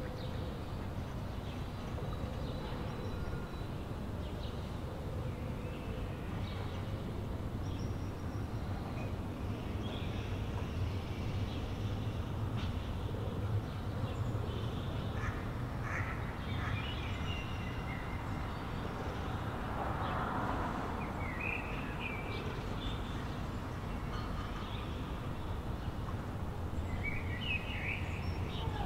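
Canal-side city ambience: a steady low rumble of distant urban traffic, with scattered short bird calls, a few in the middle and more near the end, and a brief swell of noise about two-thirds through.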